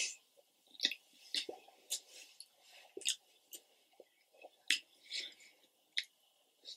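Close-miked chewing of a mouthful of food: irregular, quiet mouth smacks and soft crunches, about a dozen over several seconds.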